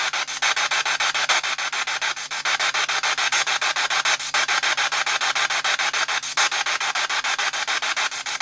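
P-SB7 Spirit Box radio scanning through radio stations, giving a loud, continuous rasping static that is chopped rapidly and evenly, with a brief dropout about every two seconds.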